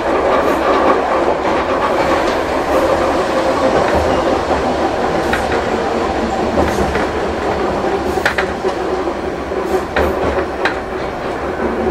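Hankai Tramway Mo161-class tram, an old car with nose-suspended traction motors, running steadily along the track, heard from inside the car. A few sharp clicks from the wheels over rail joints come in the second half.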